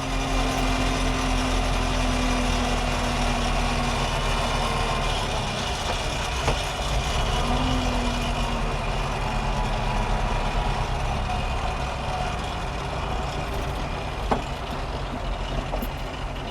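Landini Blizzard 65 tractor's diesel engine running steadily while driving, heard from inside the cab, with a couple of sharp clicks and the level easing slightly near the end.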